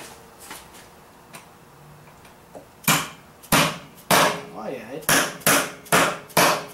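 A mallet tapping a clip-on balance weight onto the rim of a car wheel: about seven sharp knocks, starting about three seconds in and coming faster toward the end.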